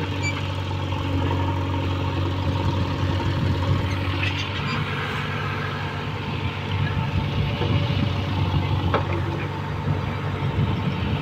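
Diesel engine of a JCB 3DX backhoe loader running steadily while its backhoe arm digs into wet pond soil, with a short metallic clank about nine seconds in.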